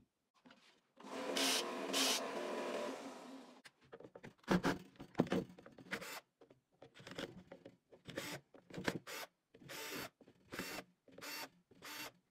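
A small electric motor runs steadily for about two and a half seconds. Then a cordless drill/driver works the screws of an angle grinder's gear-head cover in a string of short trigger bursts, about one every half second to a second.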